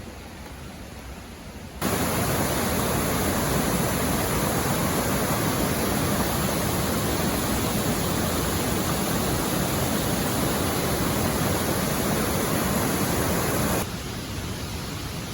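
Steady rushing noise of running water, like a mountain stream. It cuts in abruptly about two seconds in and drops away just as abruptly near the end.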